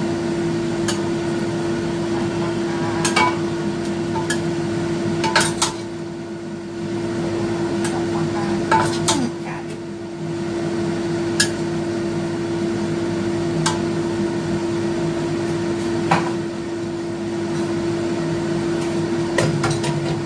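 A metal utensil clinks sharply against a steel wok and a ceramic cup every second or two while curry pieces are lifted out, over a steady hum.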